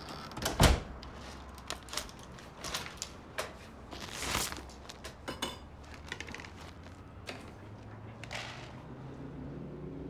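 A wooden apartment door is pushed shut with a heavy thud about half a second in. Then come scattered clicks and knocks of the latch and locks being fastened, with movement about the small room.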